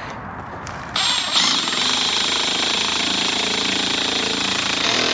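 Power drill running steadily for about four seconds in a door's hinge screw hole, starting about a second in and stopping abruptly.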